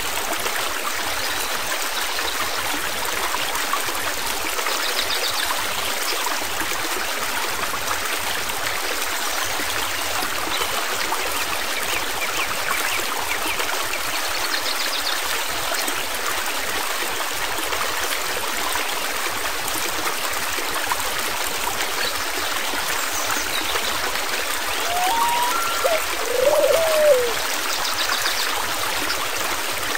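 Flowing stream water, a steady, even rush. Near the end a few short sliding tones rise and fall over it.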